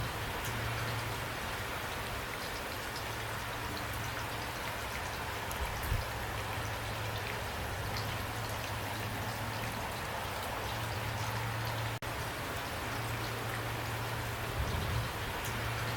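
Steady rain falling, with individual drops ticking over a continuous hiss. A low steady hum runs underneath, with a couple of soft low thumps, and the sound cuts out for an instant about three-quarters of the way through.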